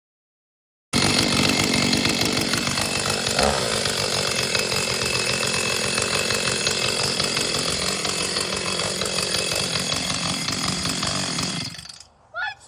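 Two-stroke chainsaw engine running steadily. It cuts in abruptly about a second in and dies near the end, stalling from too little throttle while fuel was not getting through after months unused.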